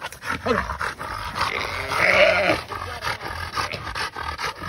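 A catch dog growling as it grips a pinned feral hog, over rustling and scuffling in dry grass. There is a harsher, louder outburst about two seconds in.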